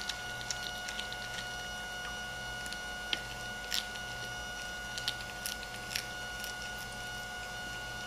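A cat chewing on a raw chicken frame, with scattered short wet crunches and clicks at irregular intervals as it works at the meat and bone. A steady faint hum runs underneath.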